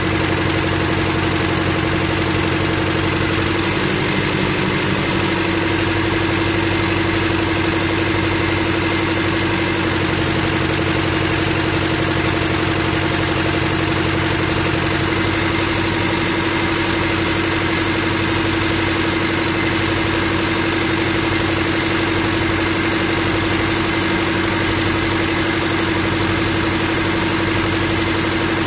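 Boat hoist's engine and hydraulics running steadily as it lowers a cabin cruiser in its slings, a constant machine hum whose tone shifts briefly about four seconds in.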